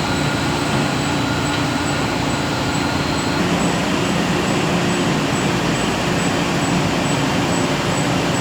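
Wood-chip-fired grain-dryer furnace installation running: a steady, loud mechanical drone with a low hum underneath.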